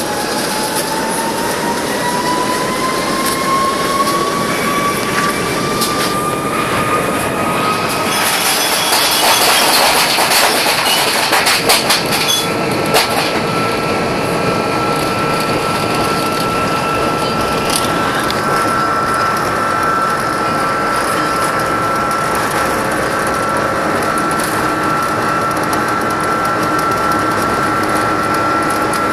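Airbus A330-300 jet engines spooling up to take-off thrust, heard inside the cabin: a whine rising in pitch over about eight seconds, then a louder rumble with rattling clicks for several seconds, settling into a steady high whine over a constant roar.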